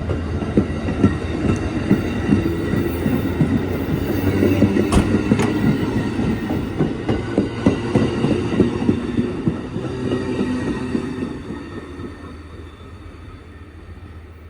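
Amtrak 51 passenger train rolling by, its wheels clicking over the rail joints, with a couple of short high wheel squeaks about five seconds in; the sound fades away over the last few seconds as the train moves off.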